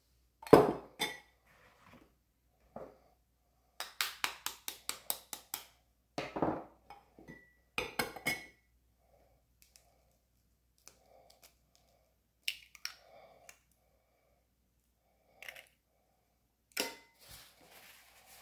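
Kitchen utensils knocking and clinking against bowls and dishes in a series of separate sharp knocks, with a quick run of about ten ticks a little over a third of the way in.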